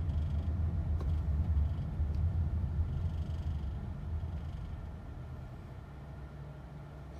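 Low, steady engine and road rumble inside the cabin of a 2015 Honda Odyssey minivan, growing quieter about halfway through. A faint tick sounds about a second in. No transmission bang is heard.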